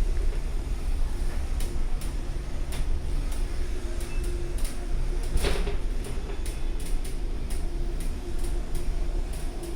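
Phoenix platform lift travelling down: its drive runs with a steady low drone and a faint steady hum, with scattered light clicks and ticks as the platform moves.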